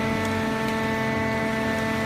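Hydraulic baler's electric motor and pump running with a steady hum at a constant pitch.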